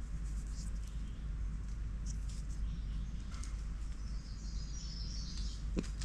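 Forest ambience with a steady low rumble and a few faint ticks. A little past halfway comes a quick run of high chirping bird notes.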